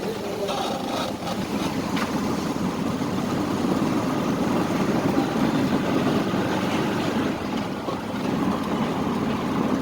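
An engine running steadily with a low rumble, amid background street noise.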